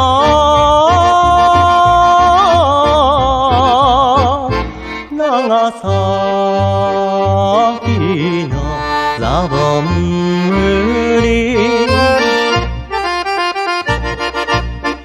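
Accordion-led music with a steady bass beat under the melody, switching to short, detached chords in the last few seconds.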